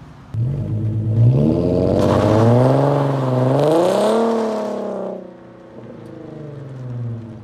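Infiniti Q50 with a custom muffler delete accelerating hard away. The exhaust note jumps up suddenly, climbs and wavers up and down, falls back about five seconds in, then swells briefly again near the end.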